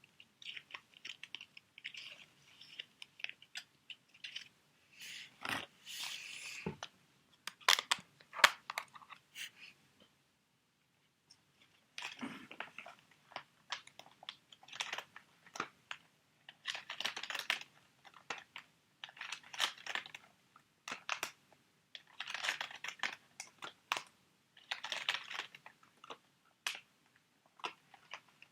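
Crinkling of plastic sheet-mask packets being handled, in short crackly bouts with a pause about ten seconds in.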